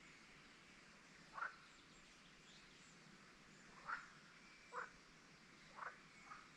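Short, sharp animal calls at the lakeside, five in all, spaced irregularly about a second or two apart, the fourth doubled; fainter high bird chirps from farther off over a quiet background.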